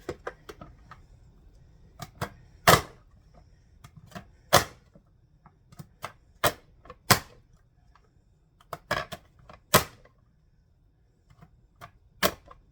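Sharp clacks of a hand-pressed vegetable chopper, its lid pushed down to force cucumber slices through the blade grid. About a dozen presses come at an uneven pace, roughly one every second, with one louder clack about three seconds in.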